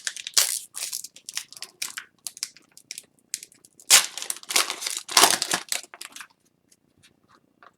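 Crinkling and crumpling of a trading-card pack wrapper being torn open and handled, with cards handled alongside. Irregular crackles for about six seconds, loudest around the middle, then it stops.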